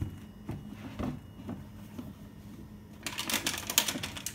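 Plastic bag of cat treats being handled: a few light clicks at first, then a burst of loud crinkling and rustling about three seconds in.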